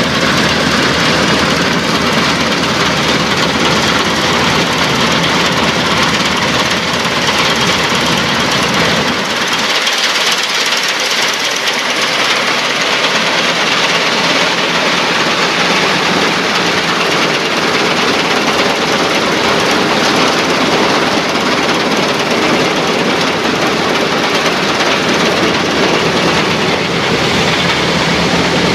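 Dronningborg D1250 combine harvester running while it cuts wheat: a loud, steady mechanical din of engine and harvesting machinery. About a third of the way in, the deep engine tone drops away and the higher machine noise carries on.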